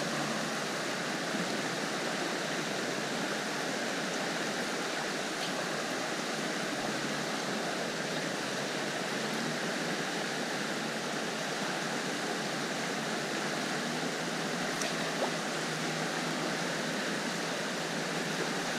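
River water flowing, a steady, even rush with no change.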